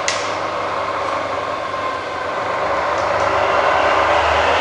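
Bridgeport variable-speed milling head running its spindle in reverse in low range: a steady machine hum with a few held tones, after a click at the start, growing a little louder in the second half.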